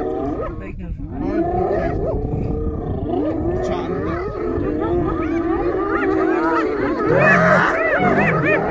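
A pack of spotted hyenas calling all at once in a mass of overlapping wavering whoops, yells and squeals while a lion mauls one of them, the sound of hyenas mobbing a lion at a kill. Near the end the calls get louder and climb higher into giggling cries.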